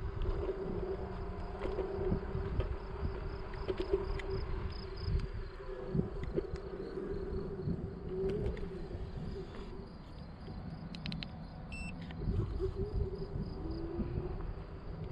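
iScooter i9 electric scooter riding along: a steady whine from its electric motor over a low rumble of wind and tyres on asphalt, with a few light clicks about eleven seconds in.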